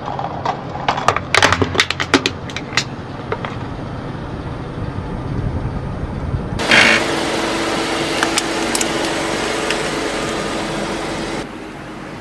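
A run of sharp cracks and snaps as something brittle is crushed under a car's tyre, over a low car noise. A little past halfway, a sudden loud burst gives way to a steady rushing hiss with a low hum from the car, which cuts off shortly before the end.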